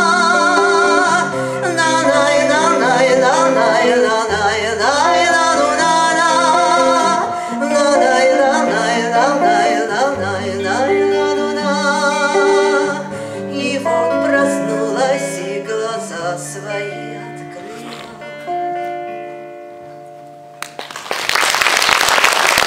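A woman singing a wordless 'na-nai-na' refrain with vibrato over instrumental accompaniment with steady bass notes. The music fades out and audience applause breaks out near the end.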